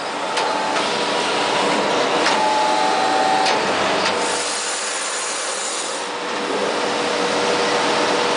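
MC2091 automatic wood-turning lathe milling a wooden blank, a steady cutting and rasping noise with a few sharp clicks in the first few seconds.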